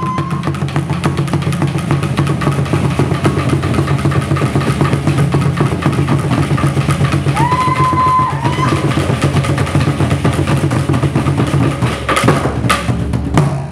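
Fast, steady drumming with a high whistle-like tone that slides up and holds for about a second around the middle, ending with a couple of loud strikes near the end.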